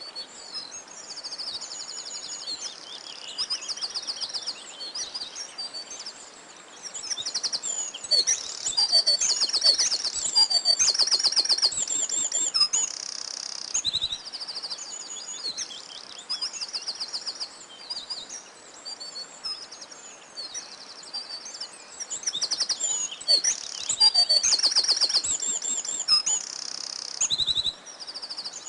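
Several songbirds singing at once: fast high trills and chirps repeating throughout, overlapping one another.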